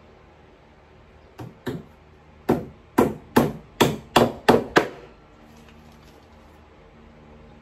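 Hammer driving a nail into the back panel of a flat-pack headboard shelf: two light taps to start the nail, then seven hard strikes at about three a second.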